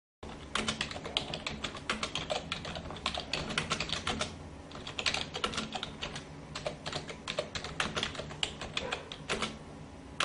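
Rapid typing on a computer keyboard: clicking keystrokes in quick, irregular runs, over a faint low hum.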